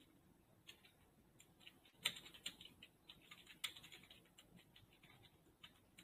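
Faint keystrokes on a computer keyboard: a few scattered single clicks, then a quick run of typing from about two to four seconds in.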